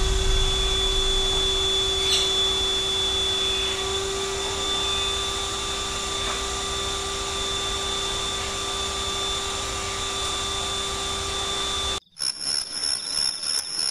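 Canister vacuum cleaner running with a steady motor whine and hum, stopping abruptly about twelve seconds in; a short stretch of music follows.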